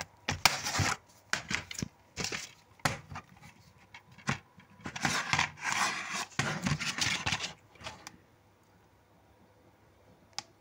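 A plastic DVD case being handled: a series of clicks and knocks with several stretches of scraping and rubbing, then quieter, with a single click near the end.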